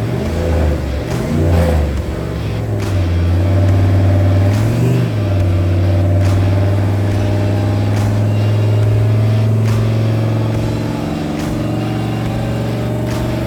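Turbocharged 6.0 Chevy V8 engine running, revved briefly a few times in the first five seconds, then held at a steady speed that eases off slightly near the end.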